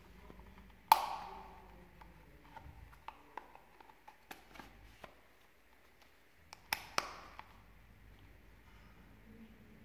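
A metal folding knife and a leather sheath being handled: a loud click with a brief metallic ring about a second in, light ticks and taps as the knife is slid into the sheath, then two sharp clicks close together near seven seconds as the sheath's metal snap is pressed shut.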